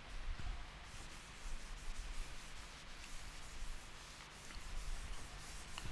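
Blackboard duster rubbing across a chalkboard, faintly, in repeated wiping strokes as chalk is erased.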